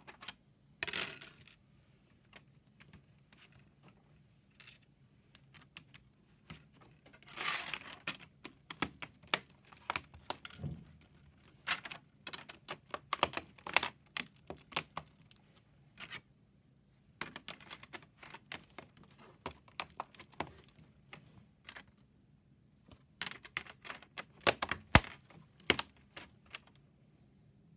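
LEGO plates being handled and pressed together: a run of irregular sharp clicks and snaps as bricks are seated onto plates, with brief rustling of loose pieces being moved about.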